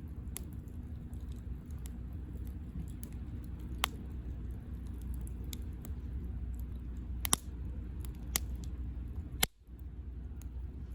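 Wood campfire burning, with a steady low rumble and scattered crackles, several of them sharp loud pops.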